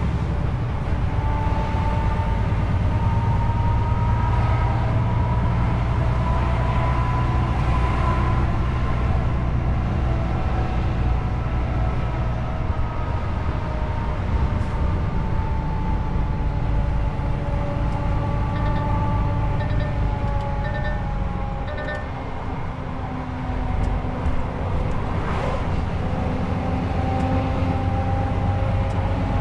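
Truck engine and drivetrain running steadily on the move, with a whine that slowly rises and falls in pitch as the speed changes. A short run of evenly spaced ticks comes about two-thirds of the way in.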